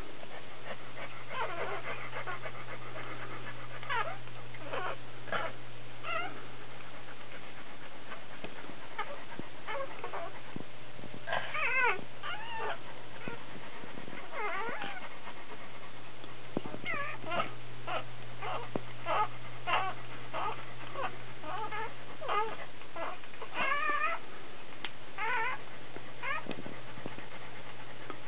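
Newborn Doberman puppies crying: repeated short, high-pitched squeals with a wavering pitch, coming in bouts with brief pauses, over a steady low hum.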